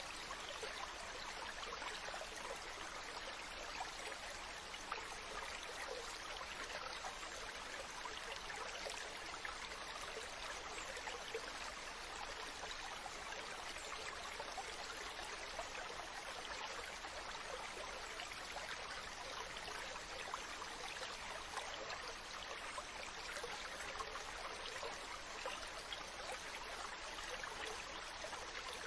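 Ocean water making a steady rushing hiss, with no separate waves or calls standing out.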